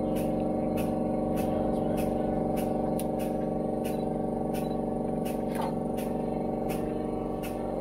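Steady machine hum made of several held tones, with sharp clicks coming irregularly about twice a second.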